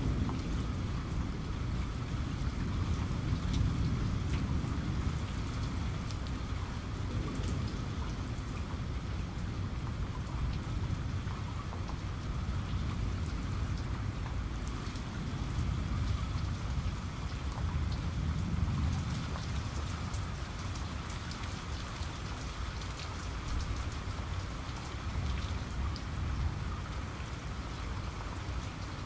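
Steady rain falling, a continuous hiss with a low rumble beneath and many small ticks of drops.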